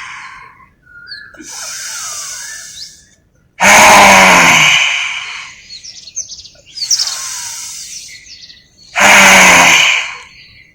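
A man doing lion's breath (Simhasana), roaring out his breath open-mouthed with the tongue out. The roars come twice, about three and a half seconds in and again about nine seconds in, each starting suddenly and fading over about a second. Birds chirp in the background.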